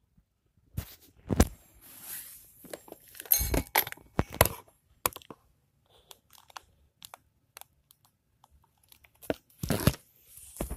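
Close handling noise on the camera's microphone: irregular rustling and scratching with a few heavy knocks, the loudest about a second and a half in and again near the end, as the camera is knocked about and covered.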